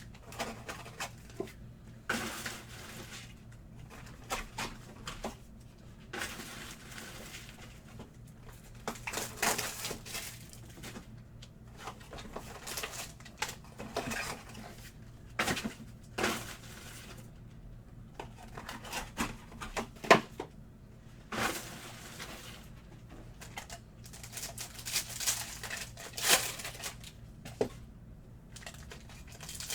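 Trading-card pack wrappers being torn open and crinkled while cards are handled, in irregular crackles and clicks.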